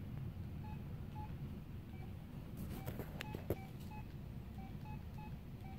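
Faint short beeps at two fixed pitches, one low and one high, repeating throughout over a low steady hum, with a few sharp clicks about three seconds in.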